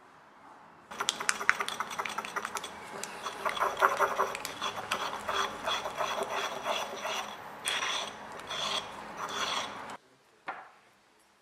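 A pestle grinding and stirring pigment paste in a mortar: a quick, rasping, scraping rub with a ringing squeak. It starts about a second in and stops suddenly about a second before the end.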